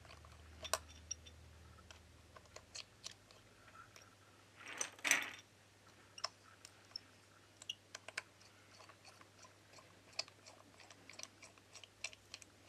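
Faint scattered clicks and ticks of a precision screwdriver working the two pentalobe screws at the bottom edge of an iPhone 11, with one brief louder noise about five seconds in.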